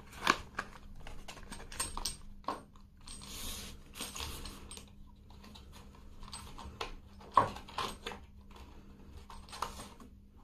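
Handling noise from opening a cardboard box of 12 g CO2 capsules and taking out a metal capsule: scattered light clicks and taps, with a brief rustle about three and a half seconds in.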